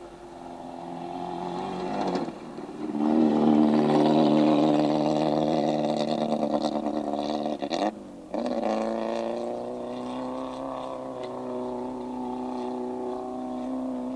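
Small hatchback rally car's engine revving hard on a gravel stage. It grows loud as the car comes past, with a short dip about two and a half seconds in, cuts out for a moment near eight seconds, then runs on more steadily as the car pulls away.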